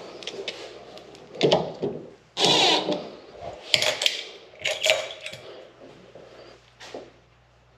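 A handful of short scraping and knocking sounds from a truck's tailgate table insert being handled and lined up under the tailgate cap. The loudest comes about two and a half seconds in.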